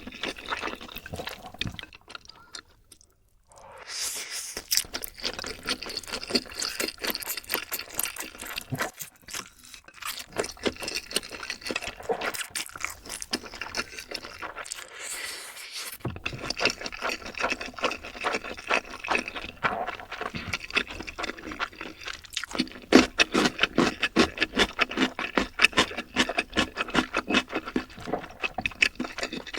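Close-miked eating sounds: wet chewing and crunching of noodles and fried chicken, with short pauses about three seconds in and again around the middle.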